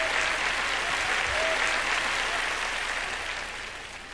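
Congregation applauding, dying away over the last second or so.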